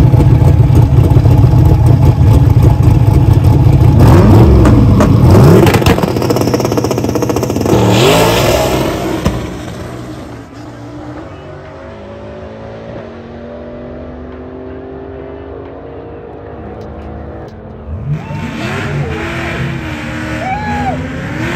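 Twin-turbocharged manual-gearbox car making a full-throttle drag-strip pass: the engine revs hard and climbs in pitch through several gear changes for about nine seconds, with the tyre spinning. Then it drops sharply to a much quieter, steady run as the car lifts off and slows.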